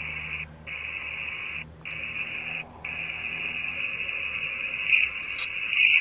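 Ghost-hunting spirit box app on a phone putting out a steady hiss of radio-like static, cut by three brief dropouts in the first three seconds.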